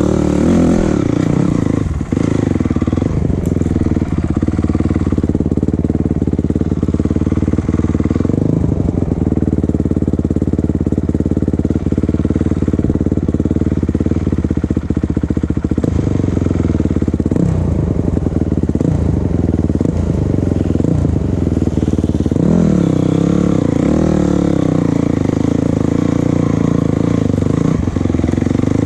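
Vehicle engine running steadily, its pitch rising and falling a few times as it changes speed.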